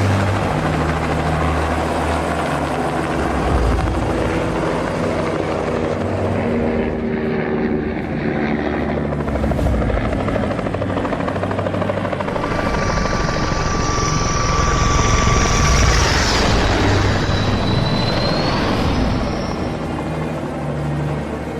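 Helicopter running steadily, its rotor throb and engine noise filling the sound. Past the middle a high whine comes in, dips and climbs again near the end.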